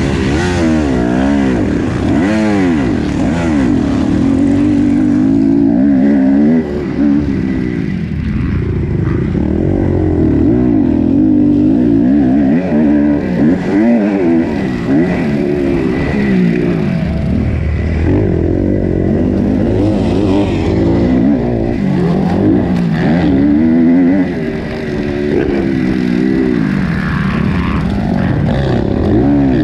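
Kawasaki KX250F motocross bike's single-cylinder four-stroke engine heard from on board while racing, revved hard and shifted. Its pitch climbs and drops over and over as the throttle opens and closes.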